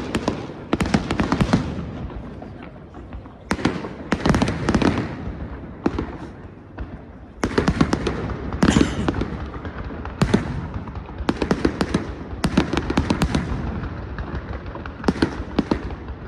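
A castillo fireworks tower going off: dense volleys of rapid cracks and pops, coming in clusters every second or two.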